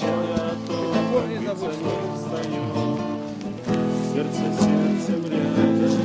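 Background music led by a strummed acoustic guitar, with a brief dip about three and a half seconds in.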